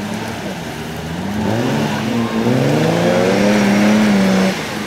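Off-road 4x4's engine revving under load as it pushes through swampy mud and reeds. The revs climb about a second and a half in, dip briefly, then climb again and hold high for about two seconds before dropping near the end.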